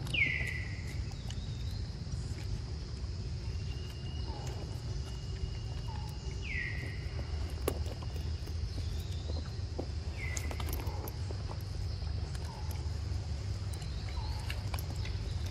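Outdoor ambience: a steady thin insect drone over a low wind rumble. A high call slides downward three times, with a few faint lower notes and scattered soft clicks.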